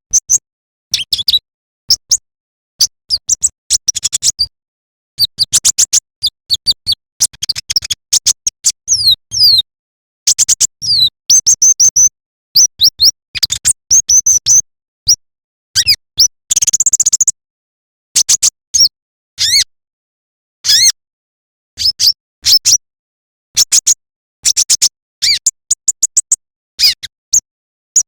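Kolibri ninja sunbird song: rapid runs of high, thin chirps and quick twittering trills, broken by abrupt dead-silent gaps.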